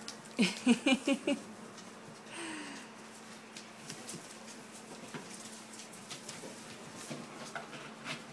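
Malamute puppies playing tug-of-war with a rope toy: a quick run of about five short yips just after the start, then light scuffling and pattering of paws and toy.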